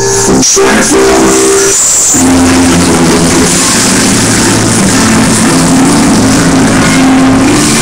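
Loud, distorted music playing back for krump dancing. It swells into a dense, heavy wall of sound about two seconds in, with held low notes underneath.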